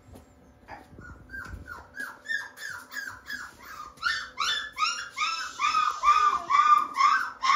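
A two-to-three-week-old North American Mastiff puppy whining in a quick run of short, falling cries, about three or four a second, growing louder over the second half.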